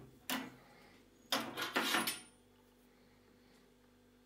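Handling noise from a steel-bladed digital angle finder being moved and lifted off a metal workbench: a short scrape about a third of a second in, then a longer rattling scrape from about a second and a half to two seconds in.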